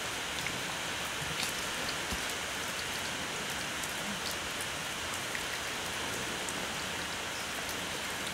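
Steady rain falling, with scattered drops ticking close to the microphone.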